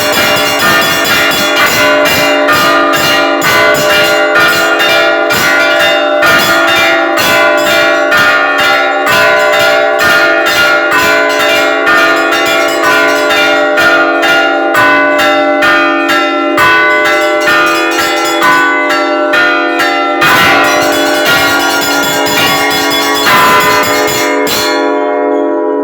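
Church bells ringing: several bells of different pitches struck in a fast, continuous pattern over a steady ringing hum. The strikes stop near the end and the bells ring on, dying away.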